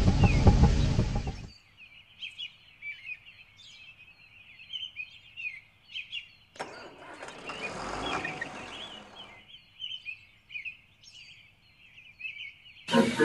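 Small birds chirping steadily in a birdsong ambience. The rumble of a passing train dies away about a second and a half in, and midway a rush of noise swells and fades over about three seconds.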